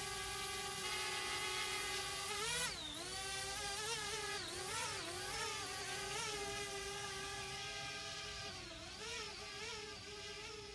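Parrot Bebop 2 quadcopter's propellers whining as it takes off. The steady whine dips sharply in pitch about two and a half seconds in, then wavers up and down as the drone climbs, and steadies again near the end.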